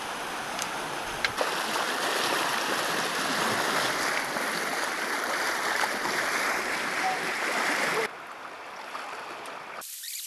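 A fast, shallow river rushing over stones, with splashing from hikers wading through it and a wooden wading pole striking the water. About eight seconds in the rush drops abruptly to a quieter, thinner wash.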